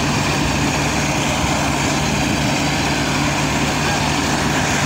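Preet track combine harvester running steadily while it unloads grain through its unloading auger, a loud unbroken engine-and-machinery drone.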